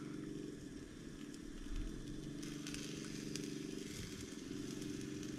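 Faint sizzle and crackle of marron frying in a pan, over a steady low hum.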